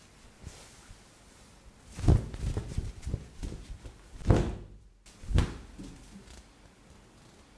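A run of dull thumps and knocks, about seven in three seconds, the loudest about four seconds in, in a small room.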